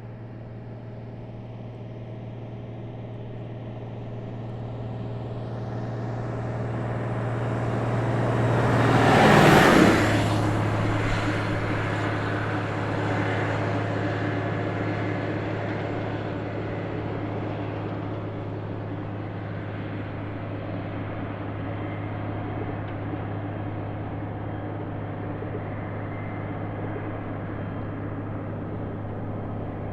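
An 18-wheeler tractor-trailer passing by at about 55 mph. It grows louder for about nine seconds, peaks as it goes past with a rush of tyre and wind noise, and its engine hum drops in pitch. Then it slowly fades but is still heard at the end.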